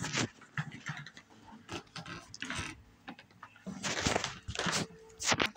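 Irregular scuffing footsteps and rustling handling noise from a phone carried while walking, with louder bursts about four seconds in and near the end.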